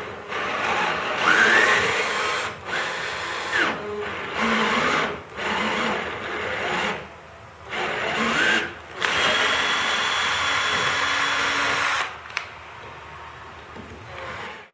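Power drill driving a 3/8 inch tap into a pre-drilled hole in steel water pipe, cutting threads. The drill runs in several short bursts with the motor speed rising and falling, then makes one longer steady run before stopping about three seconds before the end.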